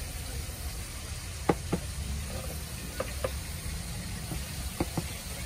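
Metal tongs clicking against a plastic tub while chicken pieces are tossed in breading flour: three pairs of short clicks over a steady low rumble.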